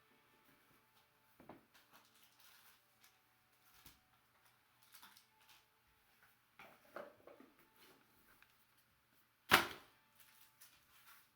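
Faint handling of a trading-card box and its packaging, with scattered light rustles and taps and one sharp snap about nine and a half seconds in.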